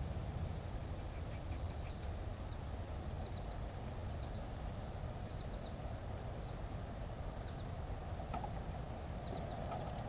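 Quiet marsh ambience: a steady low rumble under faint, brief chirps of small birds repeating every second or so, with a couple of light clicks near the end.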